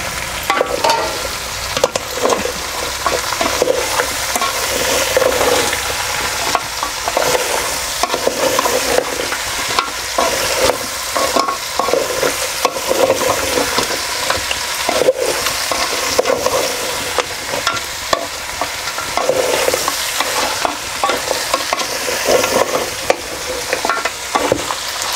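Goat-head meat frying in hot oil with ginger-garlic paste in a metal pot, sizzling steadily while a metal spatula stirs it, scraping and knocking against the pot again and again.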